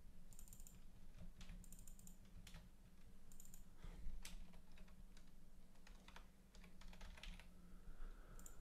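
Computer keyboard typing: faint, irregular keystrokes in small clusters as a short line of text is typed.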